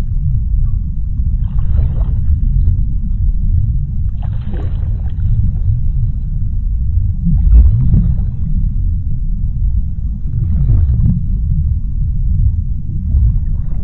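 Underwater ocean ambience: a deep, steady rumble with a short, higher, hissing swell about every three seconds, five times over.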